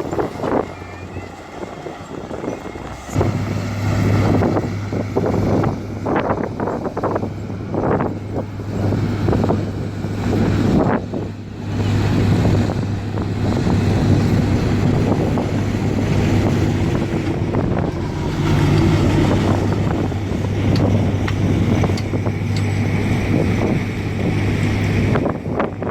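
Heavy diesel earthmoving machinery working, with a steady low engine drone that sets in abruptly about three seconds in and drops away just before the end, and many scattered clanks over it.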